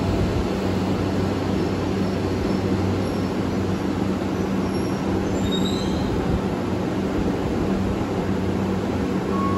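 Electric commuter train standing at a station platform with its doors open: the steady hum of its onboard equipment over the general noise of the station.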